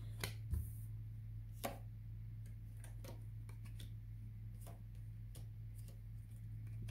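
Tarot cards being laid down and nudged into place on a wooden table, making faint, irregularly spaced light clicks and taps over a steady low electrical hum.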